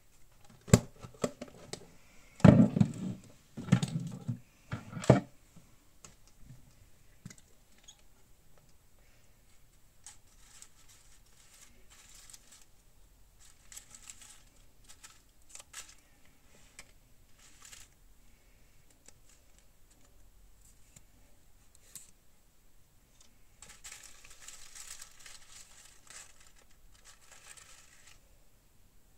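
A few loud knocks and bumps in the first five seconds, then paper scraps and ephemera rustling and crinkling as hands rummage through a box full of them, with a longer stretch of rustling near the end.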